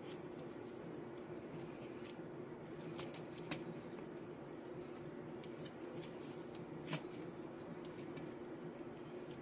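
Faint rustling of a wet cloth being wrapped by hand around insulated wires, with two light clicks, over a steady low hum.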